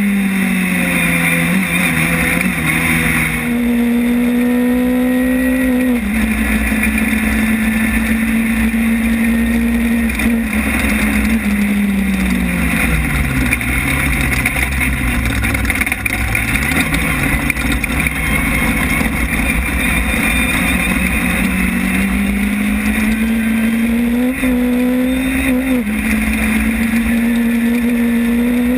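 Class 10 desert off-road race car's engine heard from inside the car, running hard. Its pitch steps up and down with the throttle and gears, sinks low for a few seconds around the middle, then climbs back, over a constant low rumble.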